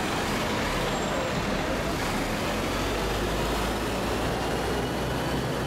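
Coach bus engine idling at the kerb amid steady city traffic noise, its low rumble strengthening about two seconds in.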